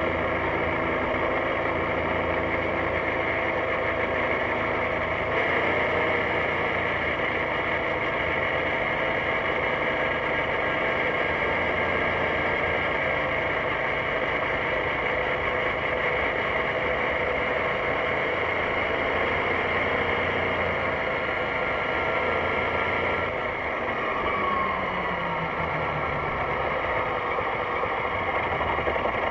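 BMW C650GT scooter's parallel-twin engine running steadily, with wind noise. A few tones fall in pitch about three-quarters of the way through.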